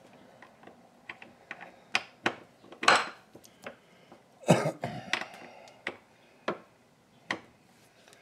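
Irregular metal clicks and knocks of the parts of a Frankford Arsenal M-Press coaxial reloading press being handled during reassembly, with a couple of louder knocks about three and four and a half seconds in.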